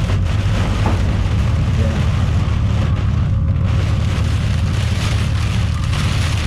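Steady heavy rain beating on a truck during a severe thunderstorm, over a constant low rumble.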